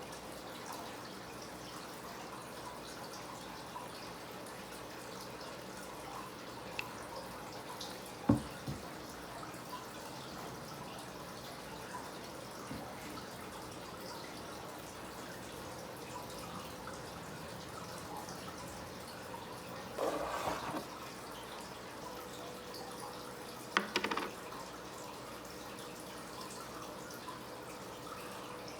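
Faint steady hiss and hum of a small bathroom, with one sharp tap about eight seconds in and two short rustling bursts around twenty and twenty-four seconds in.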